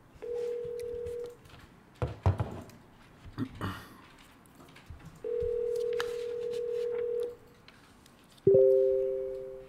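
Telephone ringback tone on an outgoing call: one short ring and then one of about two seconds, with about four seconds of quiet and a few clicks between them. Near the end comes an abrupt, louder two-pitch tone that fades away.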